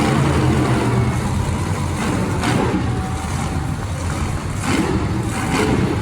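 Monster truck engines running and revving, loud and continuous, with brief swells as the revs rise and fall.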